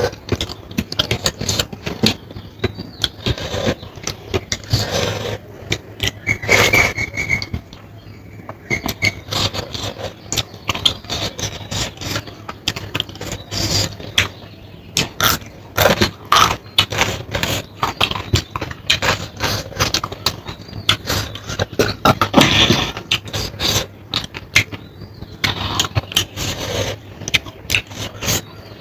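Close-miked eating sounds: rapid irregular wet clicks of chewing and lip smacking, with scrapes of food being gathered from a plate.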